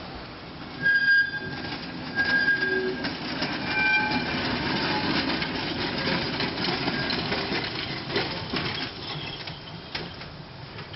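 A 1904 J. G. Brill one-man safety streetcar rolling past on its track. It gives a few short high-pitched squeals from the wheels in the first few seconds, then a steady running noise with clicks as it goes over the rail joints.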